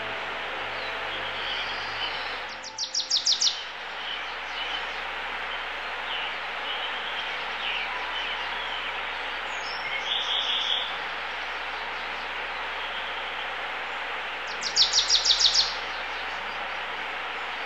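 A small songbird calling: a quick run of about seven high notes about two and a half seconds in and again near the end, with a shorter high call around the middle. A steady background hiss runs underneath.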